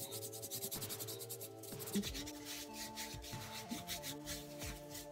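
A cloth scrubbing back and forth on a pumpkin's rind in quick, repeated strokes, wiping dirt off its skin. Soft background music plays underneath.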